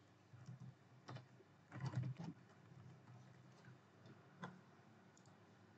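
Faint computer keyboard keystrokes: a handful of separate taps, with a small cluster about two seconds in.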